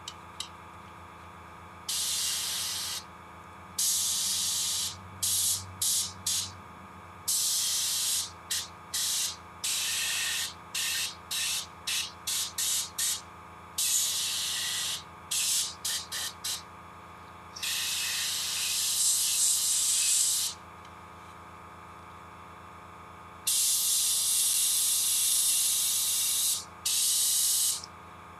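Sotar 2020 airbrush spraying paint in many short bursts of hiss as the trigger is pressed and released, with a few longer sprays of about three to four seconds in the second half.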